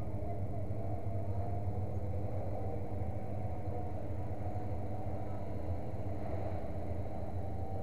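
Engine idling steadily with a low, even rumble.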